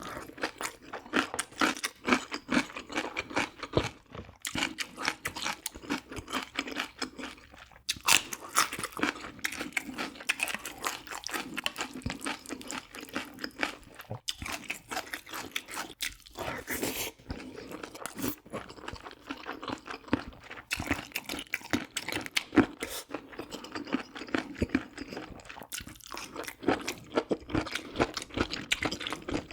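A person chewing food close to the microphone, with rapid, irregular wet clicks and crunches that keep going with only a few brief pauses.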